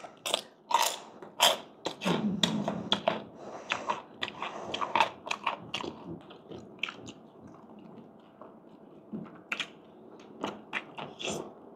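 A person chewing and biting into food close to the microphone, with irregular crisp crackles and clicks. They are dense for about the first six seconds, then thin out.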